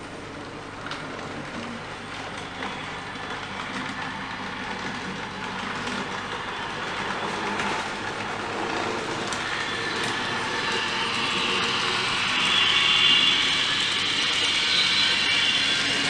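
Sound decoder in an N gauge Class 321 electric multiple unit model playing the unit's electric traction sound as it is driven up to speed, over the faint running noise of the model's wheels on the track. The sound grows louder throughout, with a high-pitched whine coming in about two-thirds of the way through.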